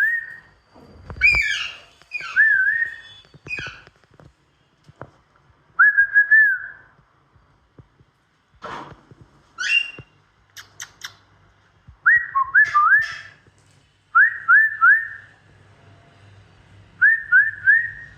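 Pet parrots whistling: short rising whistled notes, often in quick runs of two or three, broken by a few harsh screeches and a brief rattle of clicks about halfway through.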